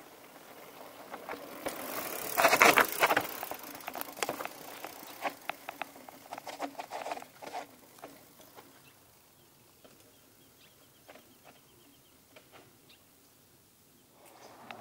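Mountain bike riding past close by on a loose dirt trail: tyres crunching and skidding through dirt and gravel, loudest two to three seconds in, then scattered ticks and rattles that fade as the bike rides away.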